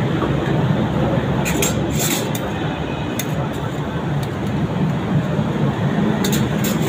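Metal tongs clicking against a large iron tawa as a paratha is turned: a few sharp clicks about one and a half seconds in and again near the end, over a steady background din.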